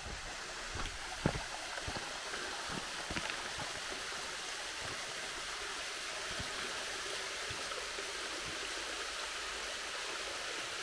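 Small waterfall pouring into a shallow rocky pool, a steady rush of falling water. A few light knocks sound in the first couple of seconds.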